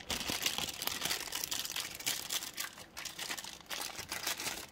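Thin clear plastic bag crinkling and crackling as hands work it off a small plastic figure head, with a dense run of fine crackles that dies away at the end.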